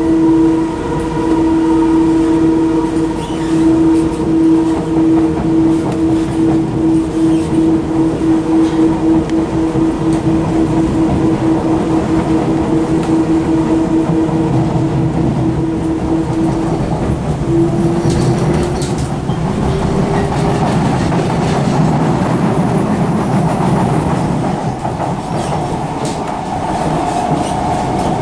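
Two Singapore MRT trains, a C151C and a C151A, running at speed, heard from inside the cars with their audio mixed together. A rumble of wheels on rail sits under a steady motor whine of several tones, and the whine rises in pitch about two thirds of the way through.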